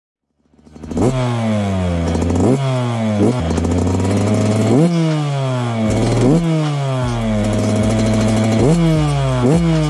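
Yamaha two-stroke dirt bike revving in place: about seven sharp throttle blips, each rising quickly in pitch and falling back to idle. It starts about half a second in.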